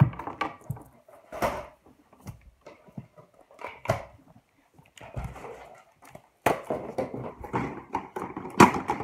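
Toys being handled and set down on a carpet: a series of knocks and thumps from a plastic hover ball and plush toys, with rustling and shuffling between them.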